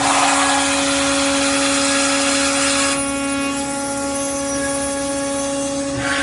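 ino Machinery XP 7000 CNC profile machining centre milling an aluminium profile: a steady spindle whine with a loud hiss of cutting and coolant spray that eases about three seconds in.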